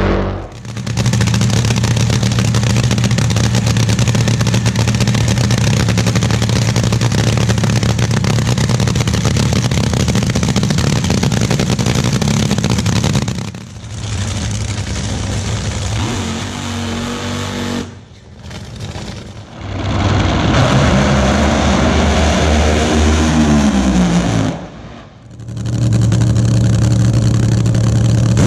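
Nitromethane-fuelled dragster engines running loud, in several back-to-back recordings that cut off abruptly every few seconds. A long steady stretch comes first; about twenty seconds in, the pitch sweeps up and down as an engine is revved.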